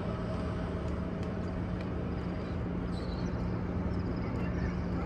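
Steady background murmur of a large crowd of worshippers, with faint scattered voices over a constant low hum.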